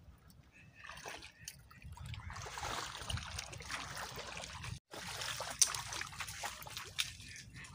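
Shallow water splashing and trickling among rocks and sticks, with scattered sharp ticks and a brief dropout a little before five seconds in.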